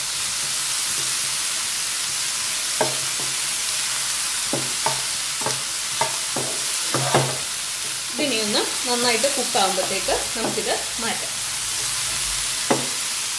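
Chicken pieces sizzling in oil in a nonstick frying pan with a steady hiss, stirred with a wooden spatula that knocks and scrapes against the pan at irregular moments.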